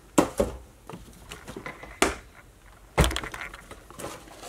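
Cardboard model-kit boxes being handled against a shelf: several sharp knocks, the loudest about three seconds in, with lighter rustling and scraping between.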